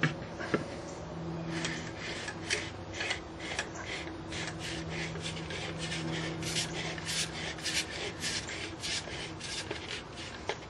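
Hand-cut wooden threads rubbing and rasping as a turned wooden urn is screwed onto its threaded insert by hand to test the fit. The strokes come in a quick run of about two or three a second, over a low steady hum.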